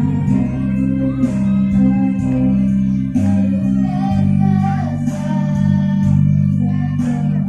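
Music with guitar over a heavy bass line; the bass holds each note and changes pitch every second or so.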